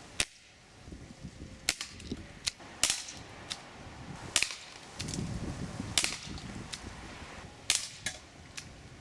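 Umarex Smith & Wesson 327 TRR8 CO2 BB revolver firing, each shot a sharp pop of released CO2, about six shots a second and a half or so apart, with fainter ticks between them.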